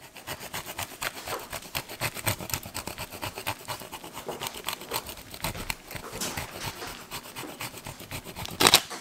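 Hard cheese being grated on a handheld metal grater: quick repeated rasping strokes, with one louder stroke near the end.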